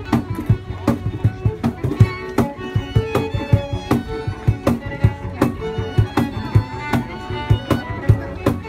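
Street musicians playing violin and cello over a steady, even percussive beat of about two to three strokes a second.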